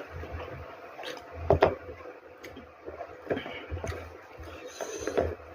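Close-miked eating sounds: chewing with irregular wet clicks and smacks of the mouth, a couple of them sharper and louder.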